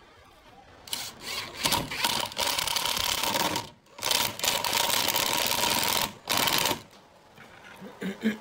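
Power drill driving screws into pine boards: the motor runs with a steady whine for nearly three seconds starting about a second in, stops briefly, runs again for about two seconds, then gives one short final burst as the screw seats.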